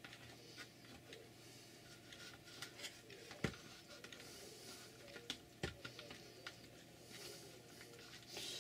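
Faint small clicks and taps of thin wooden model-ship ribs being handled and pressed into the slots of a building jig, with two sharper knocks about three and a half and five and a half seconds in. Soft rustling near the end.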